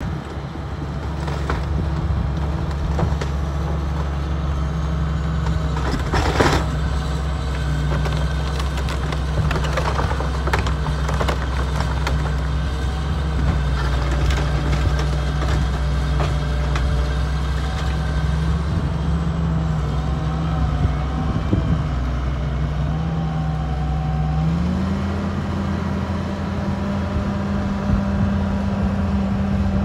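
John Deere 270C LC excavator's diesel engine running steadily under hydraulic load, with sharp cracks and splintering of old barn timber, the loudest about six seconds in and a cluster around ten seconds in. Near the end the engine note steps up to a higher pitch.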